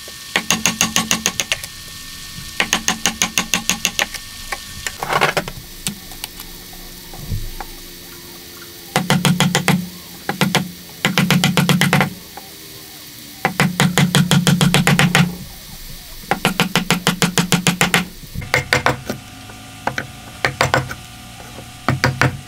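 Wood chisel driven into hardwood by quick runs of hammer blows, several a second, chopping out waste for a dovetail joint socket. Each run lasts about a second or two, with short pauses between runs.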